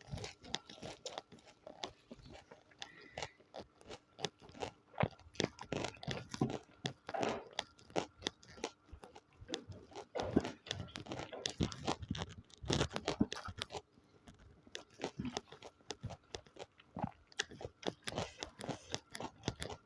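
Close-miked ASMR eating: a person chewing and crunching food, with many short crisp crunches and louder bites in an irregular run.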